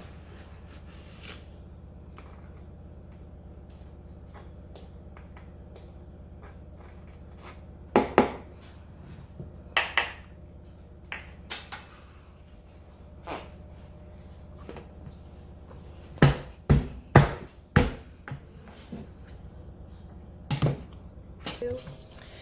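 Kitchen clatter of measuring cups and plastic containers knocking against a mixing bowl as sugar is scooped and poured in. Scattered sharp knocks come over a steady low hum, with a quick run of four knocks about three quarters of the way through.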